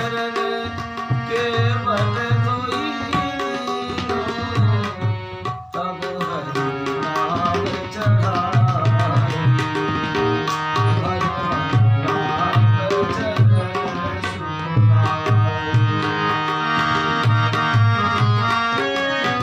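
Instrumental interlude of a Hindi bhajan: tabla playing a steady rhythm of deep strokes under a melodic line on a reed-like instrument. The music dips briefly about six seconds in, then comes back fuller.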